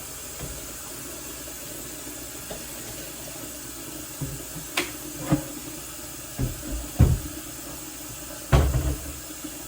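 Kitchen tap running steadily, filling a bowl with cold water. From about four seconds in, a handful of short knocks and thumps from handling things at the bowl break through, the loudest near the end.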